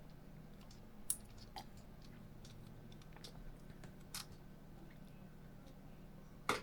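Scattered small clicks and taps of small parts and a driver being handled while a headphone earcup is taken apart, the sharpest about a second in and just before the end, over a faint steady low hum.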